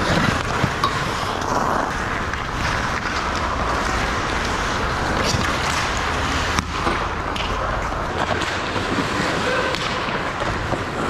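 Ice hockey skates scraping and carving on the ice, with hockey sticks and puck clacking in a few sharp knocks, mostly just under a second in and again past the middle.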